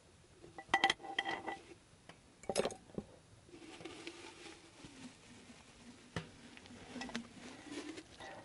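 Metal cookware and utensils clinking and clanking as they are handled, with a few sharp ringing knocks in the first three seconds, then softer handling noise and occasional clicks.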